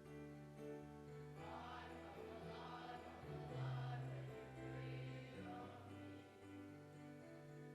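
A congregation singing a hymn over held accompaniment chords, the voices strongest in the middle stretch.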